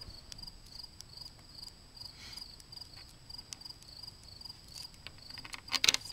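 Crickets chirping in a steady, regular rhythm, with small clicks of spherical neodymium magnet balls knocking together in a chain as it is handled, and a cluster of louder magnet clicks near the end.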